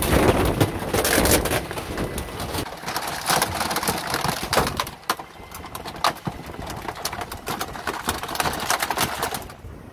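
Rear-loader garbage truck's compactor crushing bulky items, with a dense run of cracks, snaps and creaks. The sound drops away abruptly near the end.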